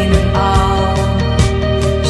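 Music: sustained pitched tones over a steady bass line, with a drum-like hit about once a second.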